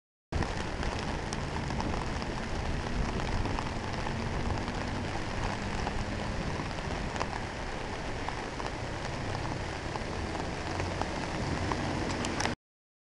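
Steady rain falling, with scattered sharp ticks of drops landing close by. The sound starts a moment in and cuts off abruptly near the end.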